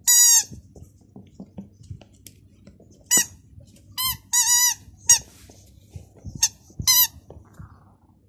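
A puppy chewing a pink rubber squeaky toy, squeezing out about seven loud, high-pitched squeaks at irregular moments. The first and the pair a little past halfway are the longest. Faint clicks of teeth and paws come between the squeaks.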